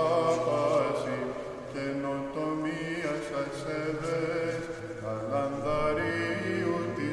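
Byzantine chant: a hymn in the fourth mode sung in Greek, the melody moving and ornamented over a steady low held drone (ison).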